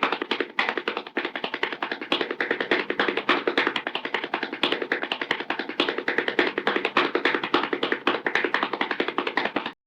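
Cartoon running sound effect: a rapid, even patter of quick footstep taps that cuts off abruptly near the end.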